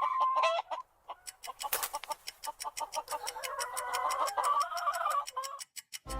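Chickens clucking, a fast run of short calls that stops shortly before the end.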